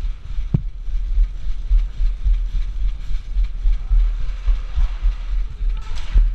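Uneven low rumbling from wind and handling noise on a body-worn camera's microphone as the player moves, with a sharp knock about half a second in and another near the end.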